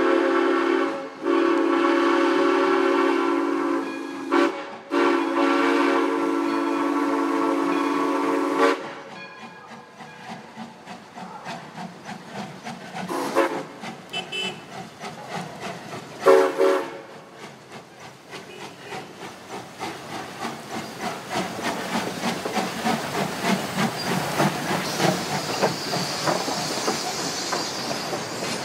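Steam locomotive whistle blowing three long blasts, then two short toots for a grade crossing. After that the train rolls by with a rhythmic clatter that quickens and grows louder toward the end.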